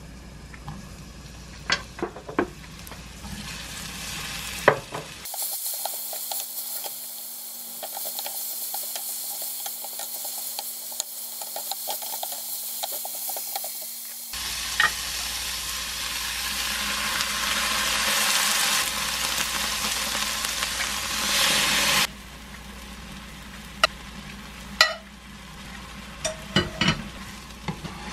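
Onion, minced garlic and shrimp sizzling in olive oil in a frying pan, a steady hiss over several edited shots. In the last few seconds, sharp clicks and knocks of a spatula against the pan as pasta is stirred into tomato sauce.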